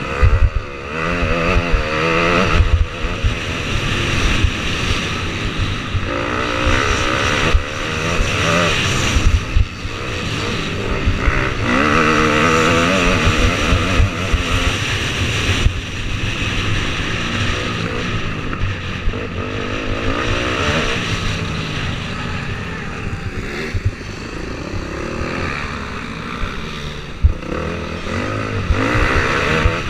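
Motocross bike engine at race pace, its revs rising and falling again and again as the rider works through the track, with low thumps and rumble underneath.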